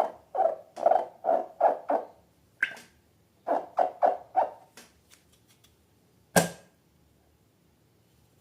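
Slime being squeezed and handled: short squishing sounds, about three a second, in two runs, then a single sharp snap a little after six seconds in.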